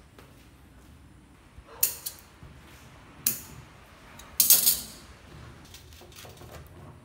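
A few sharp clicks and knocks of a plywood board and its nail against the rim of a glass tank, then a louder short clatter about four and a half seconds in as the board and a plastic toy truck are handled on top of the tank.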